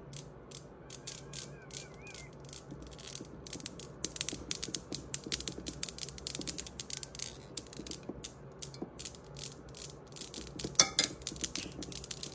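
Steel balls of a Newton's cradle clicking against one another as a kitten paws at them: a run of sharp clicks, spaced out at first and thicker and louder from about four seconds in, with one louder knock near the end.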